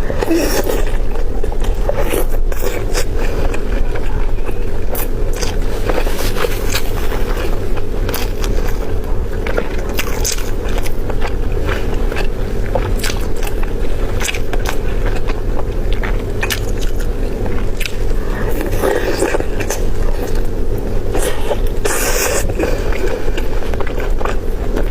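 Someone eating chicken: many sharp bites, crunches and scraping sounds over a steady low hum.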